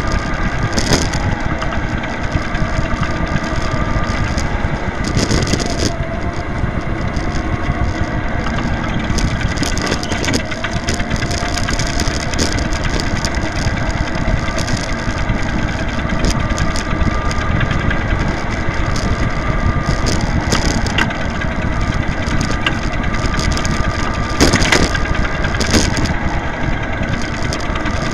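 Electric go-kart running at speed, heard from on board: a steady electric motor whine under loud rattling and tyre noise from the kart's chassis, with a few sharp knocks, the loudest of them a pair about three-quarters of the way through.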